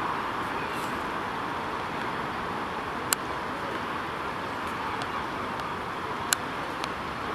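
Steady hum of distant town traffic, with two sharp clicks about three and six seconds in.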